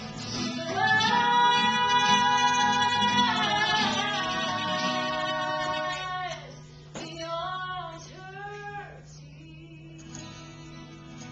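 A woman singing live to an acoustic guitar: she holds one long note for about five seconds, then sings a short run of bending notes before her voice drops away and the guitar carries on more quietly.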